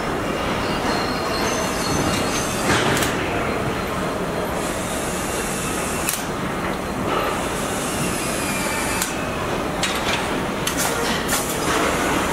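Car assembly-plant floor noise: a steady mechanical din with scattered sharp clicks and clanks and brief hisses.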